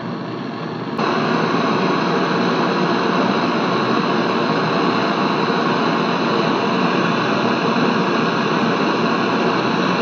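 Handheld butane canister torch burning with a steady hissing rush, louder from about a second in. The flame is heating a leaking copper refrigerant pipe on a window air conditioner to braze the leak shut.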